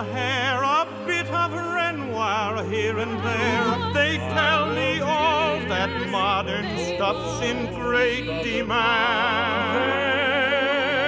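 Operatic singing with wide vibrato over sustained low accompaniment.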